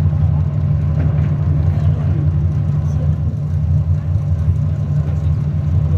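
Sightseeing boat's engines running under way, a steady low drone.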